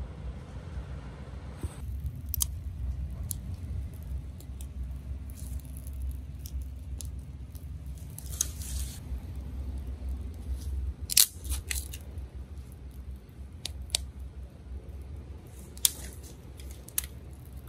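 Dry twigs and leaves snapping and crackling at a small campfire as sticks are handled and fed in, with scattered sharp snaps and a cluster of louder ones about two thirds of the way through, over a steady low rumble of wind on the microphone.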